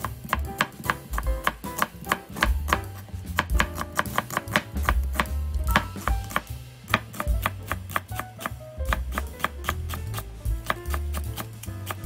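Kitchen knife chopping on a cutting board in quick, even strokes, several a second, slicing onion into thin strips and then green onion into rounds.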